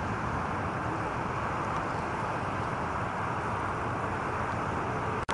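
Steady highway traffic noise, an even rush with no single vehicle standing out. It drops out for an instant near the end.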